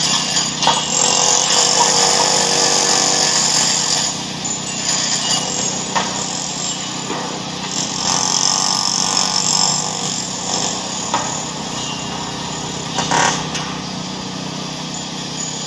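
A continuous jumble of loud mechanical noise, a din, with a few sharp knocks, a little quieter from about four seconds in.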